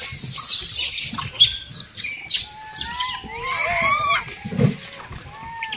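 Troop of rhesus macaques squealing: many short, arching, high calls that overlap and crowd together around the middle. Scattered clicks and rustling come from the monkeys scrambling and tearing at maize cobs.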